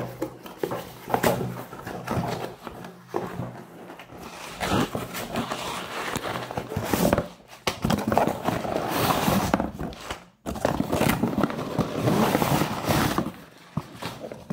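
Cardboard box and crumpled scrap packing paper being handled and pulled about, with a run of rustling and crinkling and frequent small knocks of cardboard. It is heaviest in the second half, with a brief dropout around ten seconds in.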